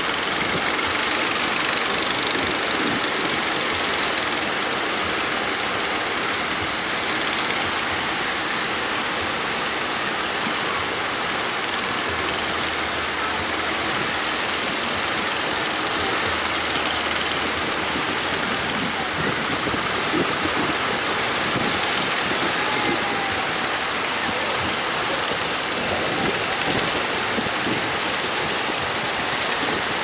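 Steady rush of heavy surf breaking, with the engine of a motorised outrigger fishing boat running low underneath.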